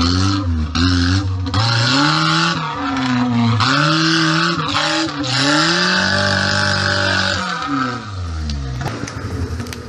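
Off-road 4x4's engine revving hard under load, its pitch rising and falling several times as the throttle is worked, with a rough hiss over it that fits spinning tyres, then dropping back about eight seconds in.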